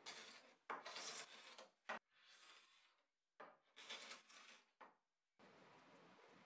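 Hand-held scraper rasping across a dresser top in a series of short strokes, then stopping about five seconds in; the scraping is not taking the finish off.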